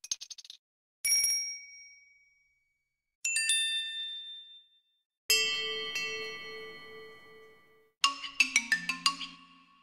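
A series of electronic phone notification tones played one after another with short silent gaps. A quick patter of clicks opens it, followed by four separate bell-like chimes. The third chime rings for about two and a half seconds over a pulsing low tone, and the last is a fast run of notes.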